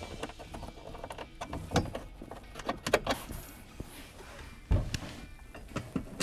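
Irregular clicks, knocks and clunks of tools and parts being handled, with one heavy low thump about three-quarters of the way through.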